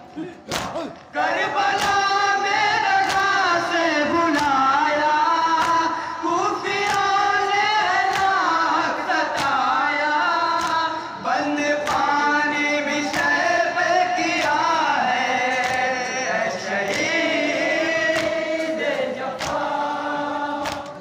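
Male voices chanting a noha, a Shia mourning lament, over a steady beat of open hands slapping chests in matam, roughly three slaps every two seconds. The singing comes in about a second and a half in; the slaps are heard from the start.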